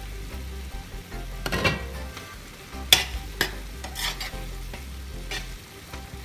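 Minced meat and peas sizzling in a pot as a spoon stirs them, with several sharp scrapes and knocks of the spoon against the pan.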